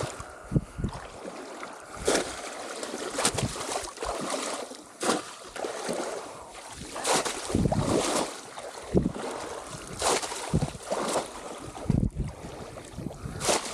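Legs wading and cane plunge-basket traps being pushed down through shallow, muddy water, making uneven splashes and sloshes about once a second.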